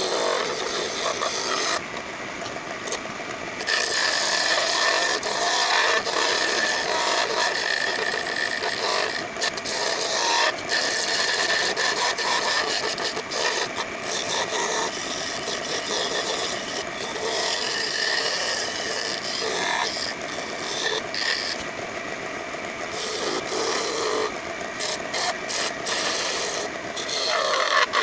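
Wood-turning chisel cutting a spinning wooden table leg on a lathe: a continuous scraping that swells and eases as the tool is worked along the piece.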